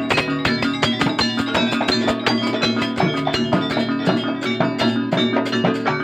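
Live music with fast, busy percussion: dense drum strokes and pitched, struck-sounding notes over a steady pitched backing.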